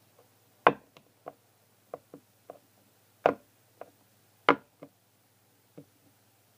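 Irregular knocks and taps of a hard plastic toy figure on a hard surface, about a dozen in all, three of them much louder than the rest.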